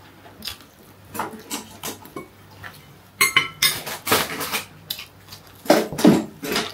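Metal fork clinking and tapping on ceramic plates at a meal, in scattered short clicks with a cluster of ringing clinks about three seconds in and louder knocks near the end.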